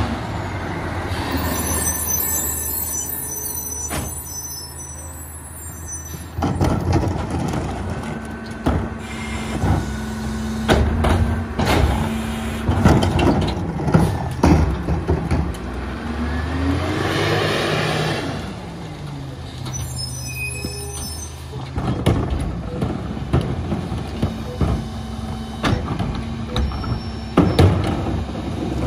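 Peterbilt 348 rear-load garbage truck's diesel engine running, with repeated knocks and clatter of trash and bins at the rear hopper. Its engine revs up and back down once about halfway through, and short hisses of air brakes sound near the start and again about two-thirds of the way in.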